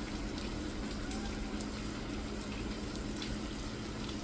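Steady rain falling, an even hiss with a few scattered drip ticks, over a faint low steady hum.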